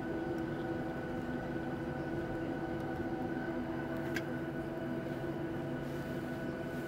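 Boeing 737-700's CFM56 jet engines heard from inside the cabin, running steadily at taxi power with an even hum and whine as the jet rolls along the runway. A single sharp click comes about four seconds in.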